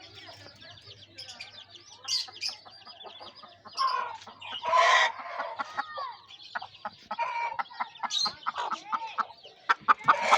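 Chickens clucking and calling, with several loud harsh calls about halfway through, over a steady stream of high, quick chirping from small birds.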